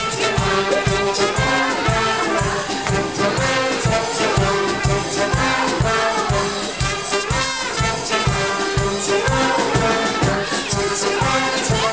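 Live brass band playing an upbeat tune, with trumpets, trombone and saxophone over a steady drum beat.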